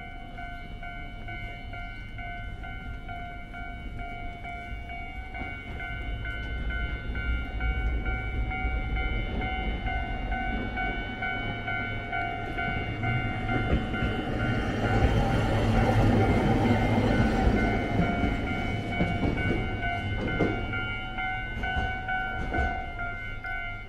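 A train passing a railway level crossing. The crossing's warning bell rings steadily throughout while the train's rumble builds, peaks about two-thirds of the way through and then eases.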